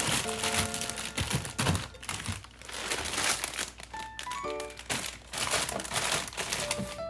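Plastic bags and food packaging crinkling in repeated bursts as groceries are handled, over light background music.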